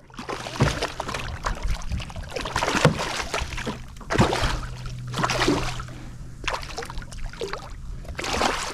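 Irregular splashing and sloshing of water at the side of a kayak as a hooked snook is fought in to be landed.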